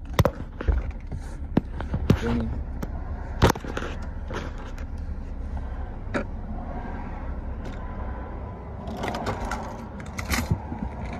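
Sharp clicks and knocks inside a car's cabin as a phone is handled and moved about, with a cluster in the first few seconds and another near the end. Under them runs a steady low rumble from the car, which is about to be backed out of the wash bay.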